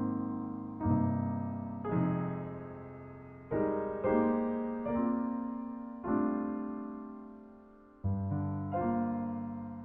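Background piano music: slow, gentle chords, each struck and left to fade, about one a second.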